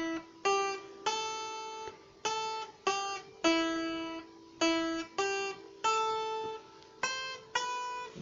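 Music: a slow melody plucked one note at a time on an acoustic guitar, each note ringing and fading before the next.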